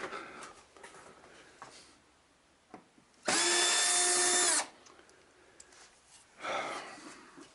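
Cordless drill-driver running in one burst of about a second and a half, spinning up and winding down, backing a screw out of the TV's metal chassis. Light clicks and handling noise around it.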